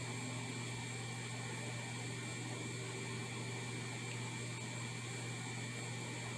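Steady background hum with an even hiss and a thin, constant high whine, with no distinct events: room tone.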